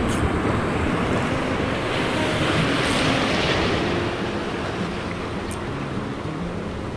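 Sea waves breaking and washing over shore rocks. The surf swells about three seconds in and then eases off.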